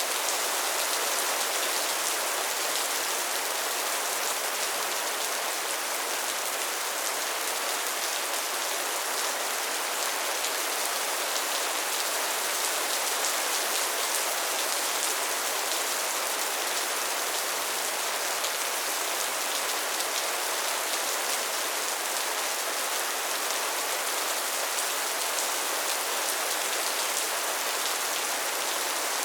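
Steady rain falling: an even, high hiss of countless drops that holds constant without a break.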